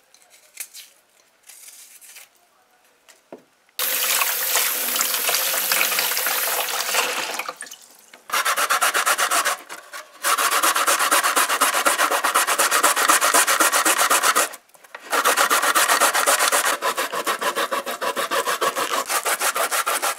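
Raw cassava root being grated on a metal box grater: loud, fast rasping strokes that stop briefly twice. Before the grating starts, a few faint scrapes of a knife paring the cassava's skin.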